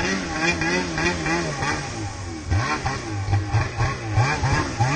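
Snowmobile engine revved up and down in quick, repeated throttle blips while the sled works across a steep snow slope. The revs sit lower and come in sharper, choppier blips in the second half.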